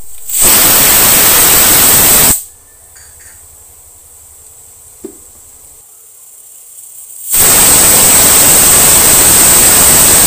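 Pressure cooker whistling twice as steam blasts out past its weight valve. The first loud hiss lasts about two seconds and the second starts about seven seconds in and lasts about three. Each whistle marks the cooker at full pressure, counted to time the cooking of the mutton.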